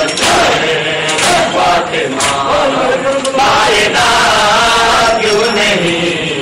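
A crowd of men chanting a mourning lament together, with sharp slaps of hands on bare chests about once a second in time with the chant (matam).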